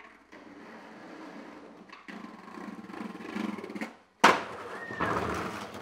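Skateboard wheels rolling over paving, getting louder as the board speeds up, then a short hush while the board is in the air and a sharp slap of the board landing down a set of stairs about four seconds in, followed by the wheels rolling on.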